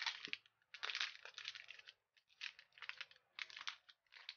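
Thin clear plastic sticker bag crinkling as fingers pull it from its paper pouch and handle it. It comes in about five crackly bursts with short pauses between them.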